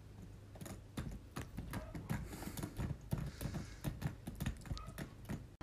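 A cat mouthing a small fitting on a wall, its tongue and teeth making a quiet, irregular run of small clicks, several a second.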